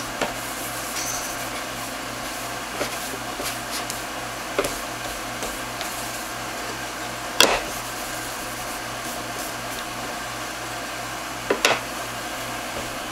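A motor's steady hum, with a few light knocks, the sharpest about halfway through and two more near the end, while a wet cloth rag is rubbed over a wooden end-grain cutting board to raise its grain.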